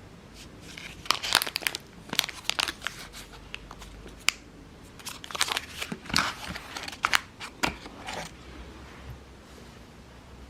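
Packaging crinkling and being torn open, in irregular bursts of crackling.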